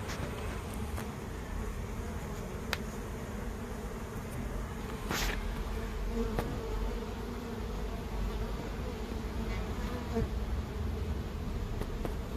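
Honey bee colony buzzing steadily in an open hive, its frames exposed during an inspection, with a couple of light clicks.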